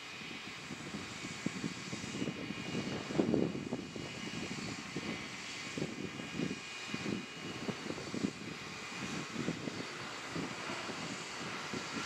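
Fendt 514 tractor's engine running steadily while it pulls a McHale round baler along a grass windrow, an uneven low rumble with a faint steady whine above it.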